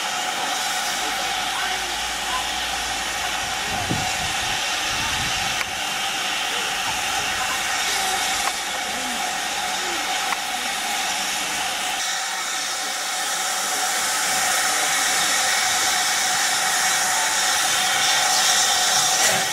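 Steam locomotive standing and blowing off steam: a steady hiss with no exhaust beats, growing a little louder about two-thirds of the way through.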